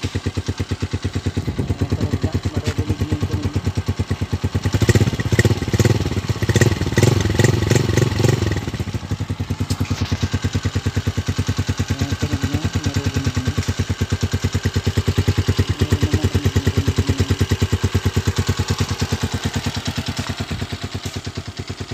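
Honda TMX 125 Alpha's single-cylinder four-stroke engine running through its upgraded exhaust pipe, which the owner isn't sure is a gutted stock pipe or a modified one, and calls not loud. It idles with a rapid, even putt, is revved in a series of blips from about five to nine seconds in, then settles back to a steady run.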